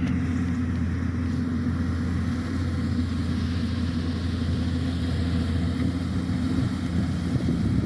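Kubota DC-105X combine harvester's diesel engine running at a steady pitch, a constant low drone.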